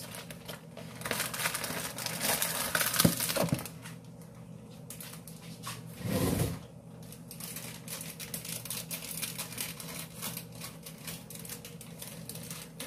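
Plastic packaging crinkling and rustling as a bag of baking mix is handled, loudest in the first few seconds. About six seconds in there is a short dull lower sound, then lighter intermittent rustling.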